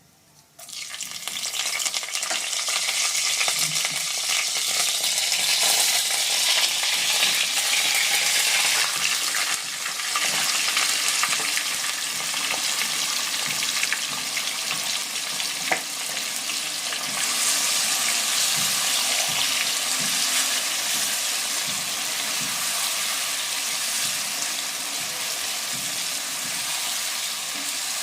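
Curry ingredients sizzling as they fry in hot oil in a pan, with stirring; the sizzle starts abruptly just under a second in and then holds steady, with one sharp click about halfway through.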